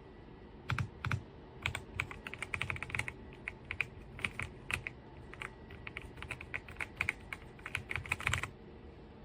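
Typing on an RK Royal Kludge R75 gasket-mounted mechanical keyboard: a quick, irregular run of keystroke clacks that starts about a second in and stops near the end.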